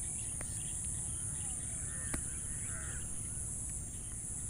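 Steady high-pitched insect chorus, with a brief bird call about halfway through and a single sharp click just after it.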